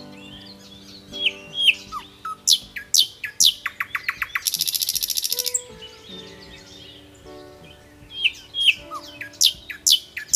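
Background music track of soft sustained notes with recorded birdsong layered over it: chirps, quick falling whistles and a fast trill, repeating as a loop.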